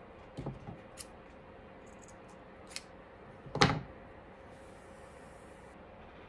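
Soft knocks and clicks of objects being handled on a tabletop while cotton twine is knotted, with one louder thump about three and a half seconds in, over a faint steady hum.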